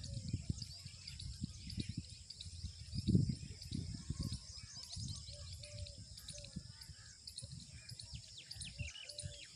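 Many small birds chirping and calling in quick, overlapping notes over a steady high insect hum. Low rumbles of wind on the microphone come and go, the strongest about three seconds in.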